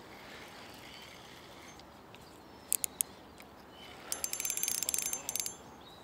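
Spinning reel on a feeder rod clicking while a hooked fish is being played. A few separate clicks come first, then about a second and a half of fast clicking with a thin high whine.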